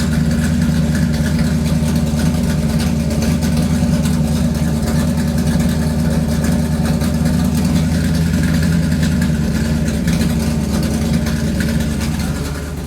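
Car engine running steadily and loudly at a constant speed, with a deep even hum. It eases off slightly near the end.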